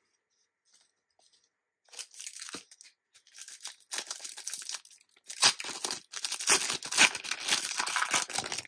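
A trading card pack's wrapper being torn open and crinkled. It starts about two seconds in as a run of rips and crackles and grows louder toward the end.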